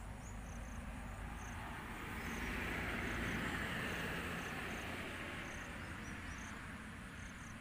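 A passing vehicle: a broad rushing noise that swells to a peak about three seconds in and then fades away. Under it run regular, high insect chirps.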